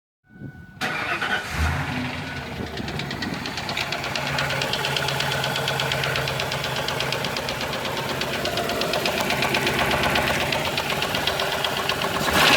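Ford Explorer 5.0 V8 engine running at idle with a fast, even ticking over it. This is the unexplained tick the owner hears since replacing the fuel pump.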